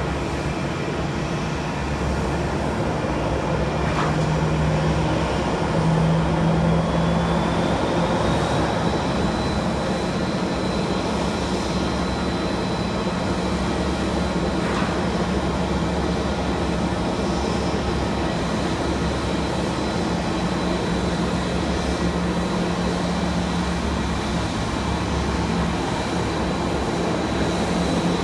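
Jet airliner engines running with a steady rumble; a high turbine whine rises about eight seconds in and then holds steady.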